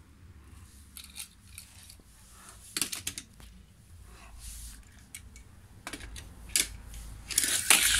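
Scattered light clicks and clatters of die-cast toy cars and plastic race-track pieces being handled, with a louder burst of clattering near the end.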